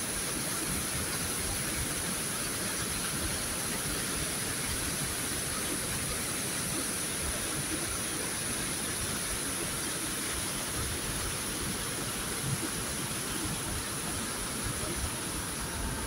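Steady rushing roar of a high single-drop waterfall and the stream tumbling over the rocks below, an unbroken wash of water noise with a faint low rumble.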